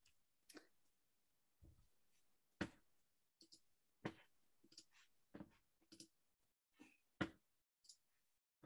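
Faint clicks and light taps at irregular intervals, about a dozen in all, with quiet room tone between: a computer mouse being clicked to start a screen share.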